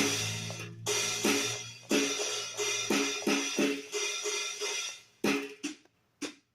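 Sampled drum kit played from a Donner Starrypad MIDI pad controller: a loud crash at the start, then a run of drum and cymbal hits about two to three a second that thins out near the end.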